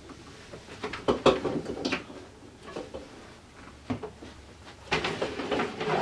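A stainless-steel mini fridge being gripped, tilted and shifted by hand: a string of irregular clunks, knocks and rubbing noises, with a longer stretch of handling noise near the end.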